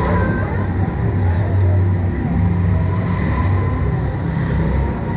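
Steady low rumble of amusement-ride machinery at a slingshot ride's capsule while it waits to launch.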